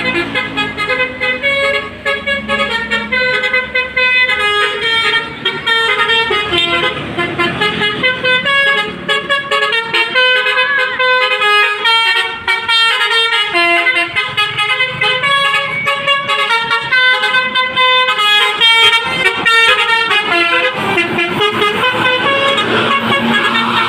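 Basuri melodic telolet horns on two tour buses playing a remix tune together in a duet: a fast melody of stepped horn notes, changing several times a second.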